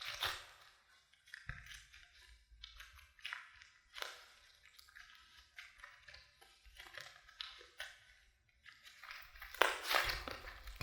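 Slime being squished and worked by hand, giving irregular crackles and clicks, loudest near the end.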